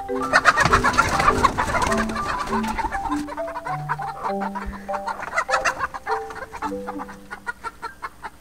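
Young Buff Orpington hens clucking and squawking in alarm at a newly introduced rooster, densest in the first three seconds and again around five to seven seconds in. Light background music of stepping mallet notes plays underneath.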